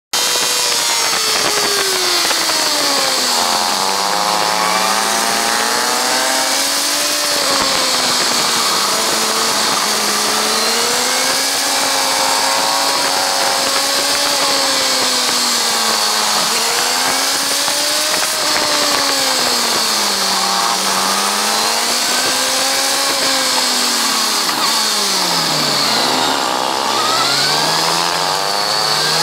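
Kawasaki ZZR1400's inline-four engine at track speed, heard from the rider's position, its pitch climbing as it accelerates and falling on braking and downshifts, over a steady hiss of wind. Near the end the revs sink lowest before climbing again.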